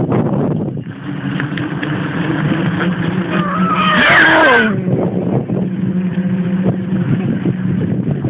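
A motor vehicle's engine passes close by about four seconds in, loudest there, its pitch dropping steeply as it goes by. Under it runs a steady low engine drone with wind noise.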